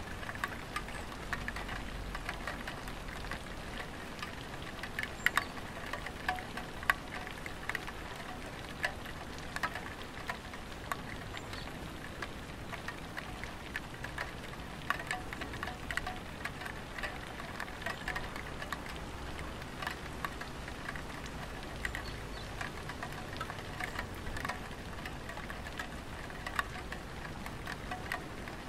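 Light rain falling on a tiled roof: a steady patter with scattered louder single drips standing out at irregular moments.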